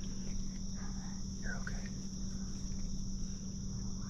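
Steady high-pitched chorus of insects in the woods.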